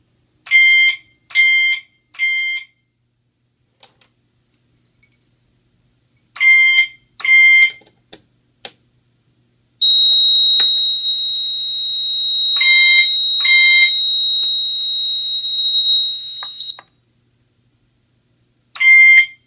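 Pyrotronics MTL MultiTone horn working as a single-stroke chime, sounding coded groups of short tone pulses: three pulses, then two, then two more, then three again, alternating the fire alarm panel's codes for zone 3 and zone 2. Midway a steady high-pitched tone sounds for about seven seconds over the pulses.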